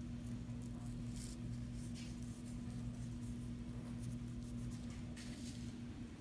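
A few faint, brief rustles of dried herb flakes being sprinkled by hand over a bowl of noodles, about a second in, at two seconds and past five seconds, over a steady low electrical hum.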